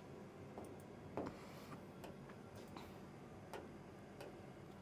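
A few faint, irregular clicks over quiet room tone: a stylus tapping on an interactive whiteboard screen.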